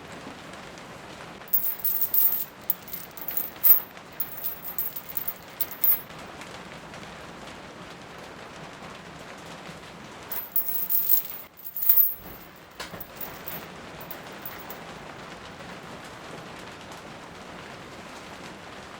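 Steady rain, with two spells of close, sharp crackling and rattling, one near the start and one about midway.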